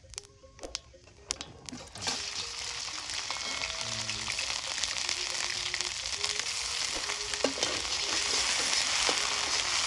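A paste of red chili, green chili, garlic and ginger sizzles in hot oil in a large metal pan. The sizzle starts suddenly about two seconds in and grows slightly louder as the paste is stirred with a slotted metal spatula.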